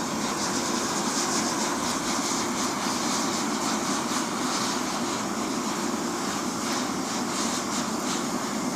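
Small air blower running steadily, forcing air into a charcoal-fired brick furnace: a constant rushing noise of blown air and fire.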